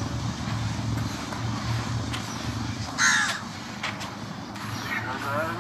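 A single loud, harsh bird call about three seconds in, over a steady low hum.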